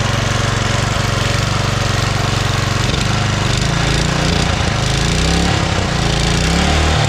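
Small single-cylinder 3-horsepower Briggs & Stratton engine on a mini bike, running steadily. About halfway through its speed starts to waver up and down.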